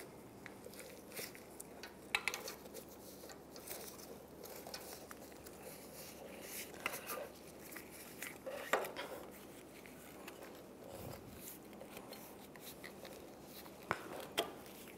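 Faint handling sounds of a rubber strap wrench being wrapped around a strut body and its handle fitted: light rubbing and scuffing with a few scattered clicks, the sharpest about nine seconds in.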